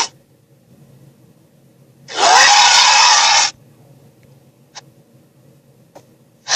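A creature roar sound effect, about a second and a half long, that starts abruptly and cuts off sharply, followed by two faint clicks.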